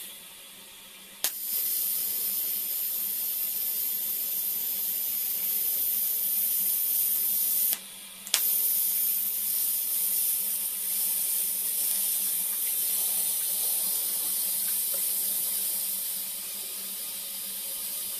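TIG welding arc on thin-wall stainless steel tube: a steady high hiss that starts with a sharp click about a second in, stops for about half a second near the middle, and restarts with another click.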